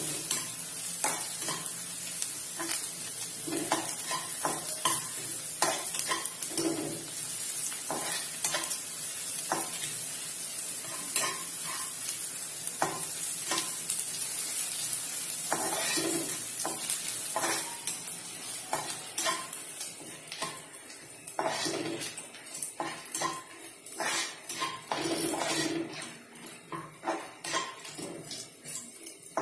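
Sliced onions sizzling in hot oil in a nonstick wok, stirred with a spatula that knocks and scrapes against the pan again and again. The sizzle thins out over the last ten seconds or so.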